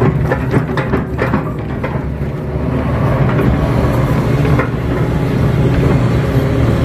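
Kato crawler excavator's diesel engine running under working load, heard from inside the cab, while the bucket digs wet clay. Several sharp knocks in the first two seconds, then the engine note grows a little louder and holds steady.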